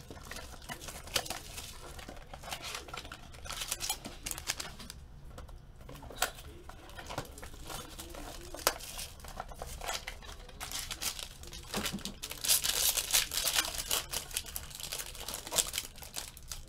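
Clear cellophane wrap crinkling and tearing as it is peeled off a trading card box, then a foil card pack crinkling loudly as it is torn open in the second half.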